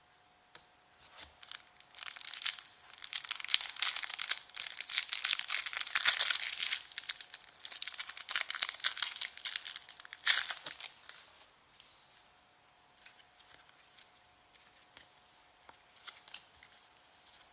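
Trading card pack wrapper being torn open and crinkled, several seconds of dense crackling with a sharp tear about ten seconds in, followed by softer handling clicks of the cards.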